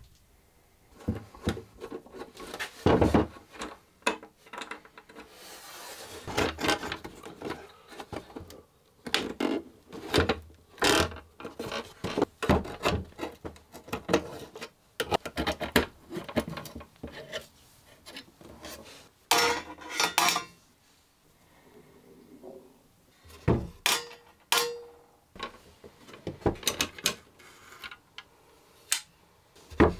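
Screwdriver turning out the old screws of an antique drawer lock, with irregular grinding scrapes on the screw heads and sharp metal clicks. The lock's metal plate scrapes and knocks against the drawer's wood as it is worked loose.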